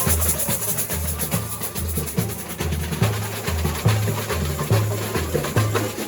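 Samba bateria playing: deep surdo bass drums beat a steady pulse, alternating between two pitches, under fast, dense snare and shaker strokes.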